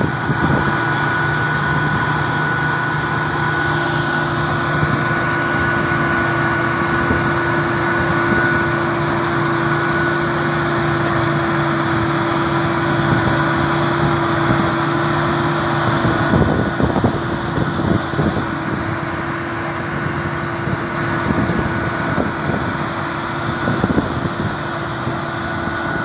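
Fiatagri 3650 combine harvester running close by while cutting wheat: a loud, steady engine and machinery drone with a high steady whine over it. About two-thirds of the way through the lower hum drops away and some rattling knocks come through.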